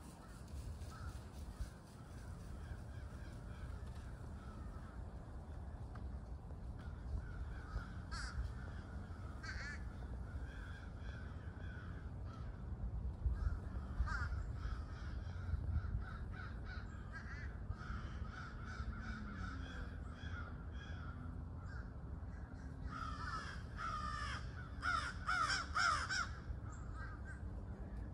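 A flock of crows cawing overhead: scattered caws throughout, then a burst of many overlapping caws near the end.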